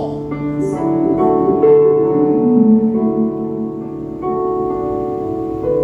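Keyboard playing slow, sustained piano-like chords that change every second or so.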